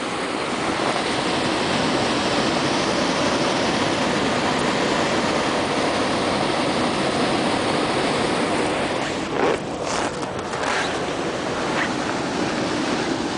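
Steady rushing wind noise across the microphone, with a few short knocks or rustles about nine to eleven seconds in.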